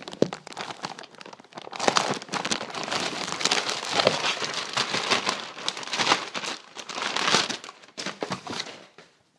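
Clear plastic packaging bag crinkling and rustling as it is pulled open by hand, in dense crackles from about two seconds in until shortly before the end.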